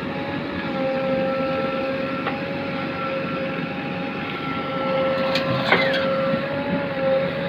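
JCB backhoe loader running with a steady high whine over its engine noise. A few sharp clicks and a short falling squeal come about five and a half seconds in.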